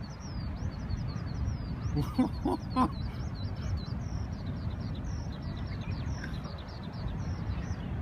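Steady low rush of large typhoon swell breaking on a sandy beach, with a small bird singing rapid high chirps throughout, about four a second. About two seconds in, three short harsh calls stand out as the loudest sounds.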